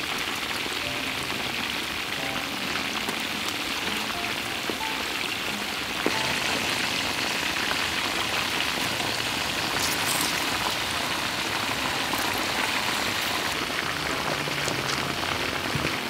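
Chicken drumsticks deep-frying in hot oil in a wok: a steady sizzle and crackle that gets a little louder about six seconds in.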